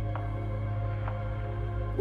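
Ambient background music: a held low chord with soft, evenly spaced notes about twice a second.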